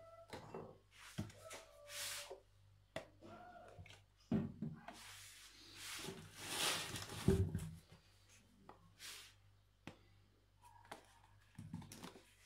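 Cardboard packages, a carton of soy milk and a box of oat flakes, being handled and set down on a plastic tray: rustling and scraping with soft knocks, the loudest a swell of scraping and a thump about seven seconds in.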